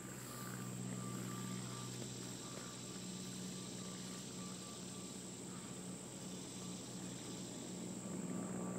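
Steady outdoor ambience: a continuous high-pitched insect drone, as of crickets, over a low steady hum.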